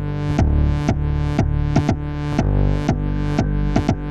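Electronic music from a Eurorack modular synthesizer patch mixed through an AI028 voltage-controlled matrix mixer: a kick drum and bass under a repeating pattern of short synth notes that start bright and dull quickly, sent to delay and reverb. The delay's output is fed back into the mixer, making a feedback loop.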